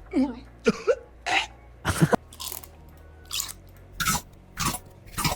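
AI-generated monster chomping sound effect: a quick, irregular run of short biting, crunching and gulping noises, some with a throaty growl.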